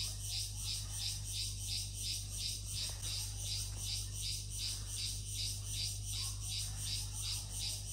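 Rainforest insect chorus: a high buzzing that pulses evenly about three times a second, over a low steady hum.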